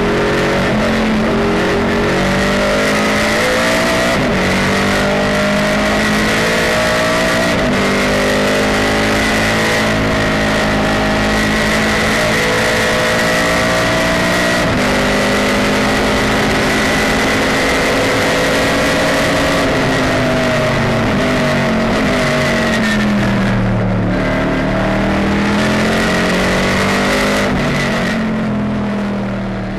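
Pontiac GTO race car's V8 heard from inside the cockpit at racing speed, its note climbing and dropping through gear changes, with a drop in pitch and a climb again a few seconds before the end as it slows for a corner and accelerates out. A steady high whine runs over the engine, and the sound fades near the end.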